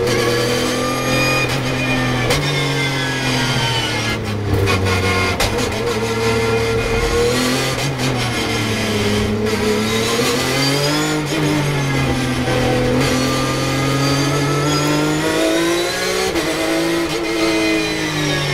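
Porsche 911 GT3 Cup race car's flat-six engine heard from inside the cockpit: the revs fall as it brakes and downshifts about four seconds in, stay low through a slow corner, then climb hard under acceleration, broken by upshifts about two-thirds of the way through and again near the end.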